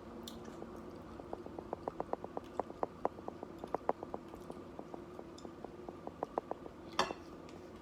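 Hot sauce being shaken out of a bottle with no spout: a run of small, quick ticks and drips, several a second, for about five seconds, with one louder click near the end.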